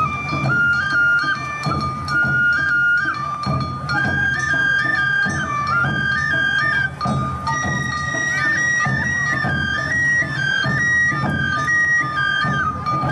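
Awa Odori festival music: shinobue bamboo flutes play a stepping melody over a held note, with a steady beat of drums.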